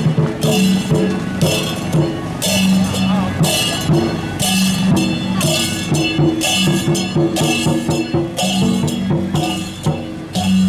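Temple procession music: drums and cymbals beating a steady rhythm, with cymbal crashes about once or twice a second over sustained pitched tones.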